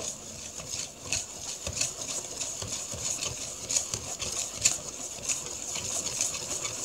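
Hand whisk beating eggs and flour in a bowl: a fast, irregular run of clicks and taps as the wires strike the bowl.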